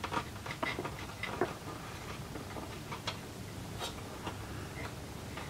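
Scattered small clicks and taps at uneven intervals from fingers working a glued bone nut into the nut slot of a resonator guitar neck.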